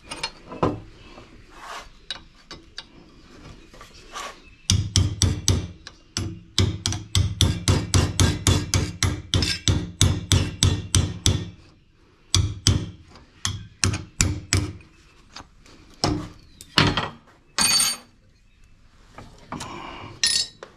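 Hammer tapping a small cold chisel against metal to knock parts out of aluminium heatsinks. After a few scattered knocks comes a fast, even run of taps at about four a second lasting several seconds, then slower single strikes, one with a high ring.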